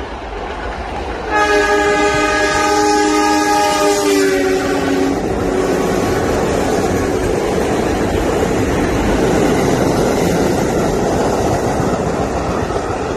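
R32 New York subway train's WABCO AA2 air horn sounds one long chord starting about a second in, stepping slightly lower in pitch near its end. The train then rushes past at speed with steady rumble and wheel clatter.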